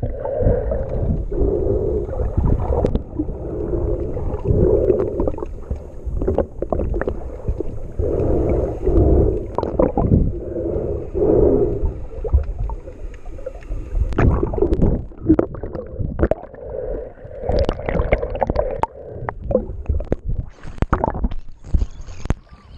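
Muffled underwater water sound through an action camera's waterproof housing: gurgling and sloshing that swells and fades every second or two as a snorkeler swims, with sharper splashes toward the end.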